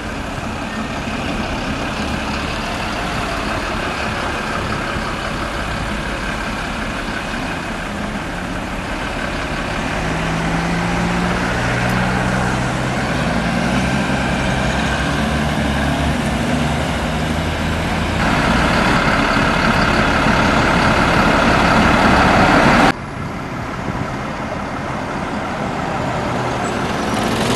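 Single-deck bus engines running as the buses pass close by and pull away in street traffic, growing louder about halfway through. The sound cuts off abruptly about 23 seconds in, and another bus engine builds up near the end.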